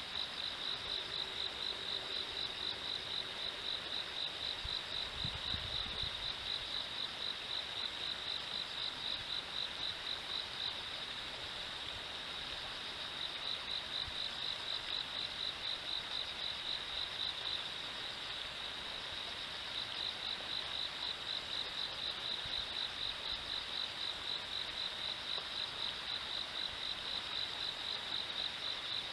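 An insect chirping in a steady, even rhythm of about three high-pitched pulses a second, pausing twice for about two seconds, over the faint wash of flowing river water.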